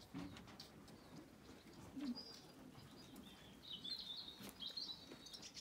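Small birds chirping in short, high twittering phrases, briefly about two seconds in and then more steadily through the second half, faint against a quiet background.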